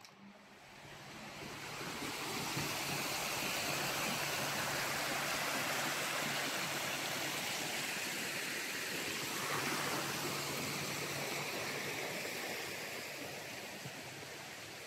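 Steady rushing noise that swells over the first two seconds and slowly fades near the end, with a faint low hum underneath.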